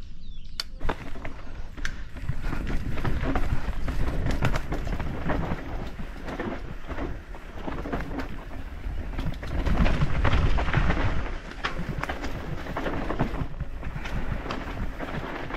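Trek Slash full-suspension mountain bike riding down a dirt forest trail: a steady rumble of tyres on the dirt with a constant clatter of chain and frame rattling over roots and bumps, loudest about ten seconds in.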